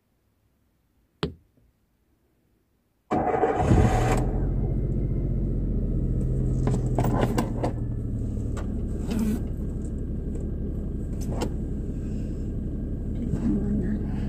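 A single click about a second in, then about three seconds in a car engine is started: a brief burst as the starter cranks and the engine catches, then it settles into a steady idle. A few short clicks sound over the idle.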